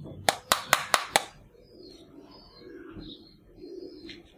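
Five quick, sharp plastic clicks in about a second from a toy hand grenade being handled, followed by doves cooing softly in the background.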